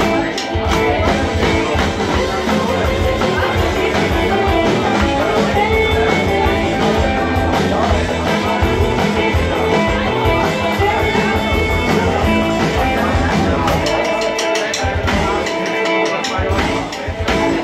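Live band playing with electric guitars over a steady bass beat. The low end drops out briefly near the end.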